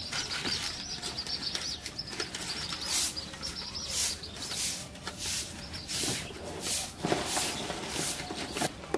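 Raw bottle gourd being sliced against an upright boti blade: a run of short, even cuts, about one every 0.7 s from about three seconds in. Birds chirp in a high warble during the first few seconds.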